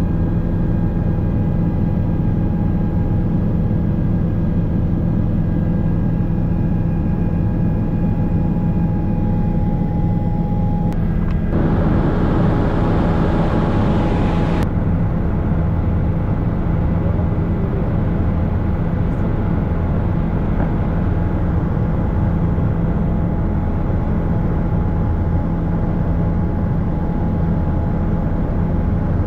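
Helicopter running steadily, a constant low engine and rotor drone with a faint high whine that stops about eleven seconds in, and a rush of hiss for a few seconds after it.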